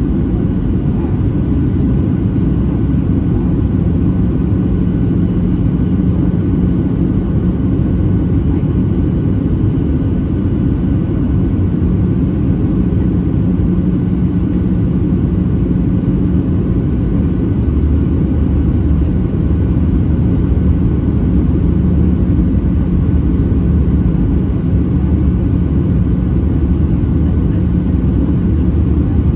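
Steady airliner cabin noise from a window seat over the wing of a Boeing 737-700 on approach: the drone of its CFM56-7B turbofan engines and the rush of air past the fuselage. A deep hum grows stronger a little past halfway.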